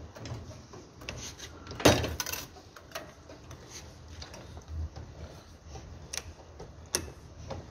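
Irregular metallic clanks and clicks from an iron-wire cutting machine being worked by hand at its feed and cutter mechanism, over a low steady hum. The loudest clank comes about two seconds in, with two more sharp knocks near the end.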